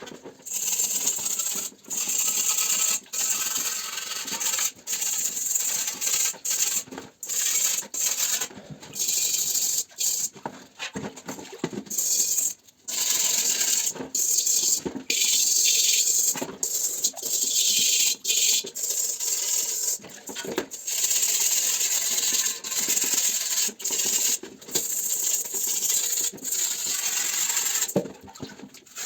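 Repeated abrasive scrubbing strokes on the rusty steel shell of an M35 helmet as rust is cleaned off, a rasping hiss roughly one to two strokes a second with short breaks.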